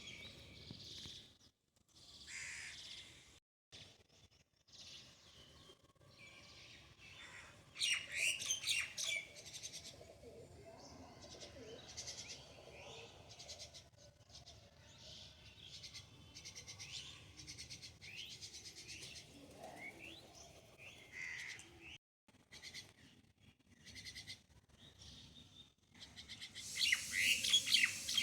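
Small birds chirping and calling in short, high notes and quick sweeps, with louder flurries of chirping about 8 seconds in and again near the end.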